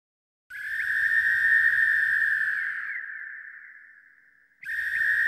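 A high, steady whistle-like note starts abruptly about half a second in, holds for a couple of seconds and slowly fades away. A second identical note starts near the end.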